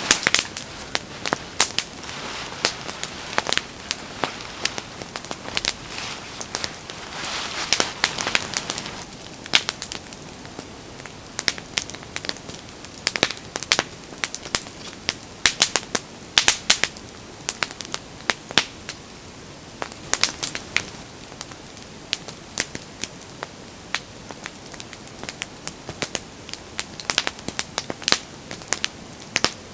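Wood fire crackling, with irregular sharp pops and snaps over a soft steady hiss that swells briefly about a quarter of the way through.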